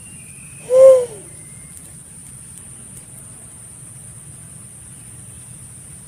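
Pink-headed fruit dove giving a single low hoot about a second in, its pitch rising and then falling. A steady high-pitched drone runs beneath it.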